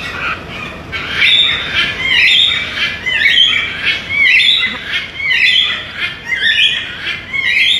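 A parrot squawking loudly and repeatedly, harsh calls coming about once a second: an angry parrot.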